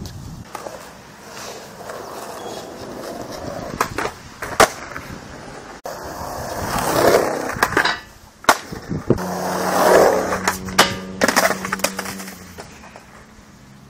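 Skateboard wheels rolling on a concrete skatepark, swelling louder twice as the board passes close. Several sharp clacks ring out as the board's deck and wheels strike the concrete during tricks.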